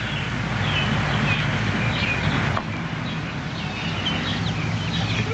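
Chickens clucking, with short chirping calls scattered over a steady background murmur.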